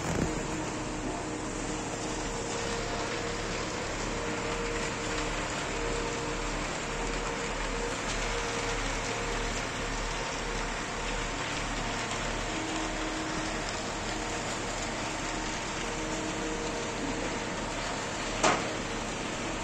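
Steady machine hum and rushing noise, with faint held tones and a slow low throb. A single sharp knock comes near the end.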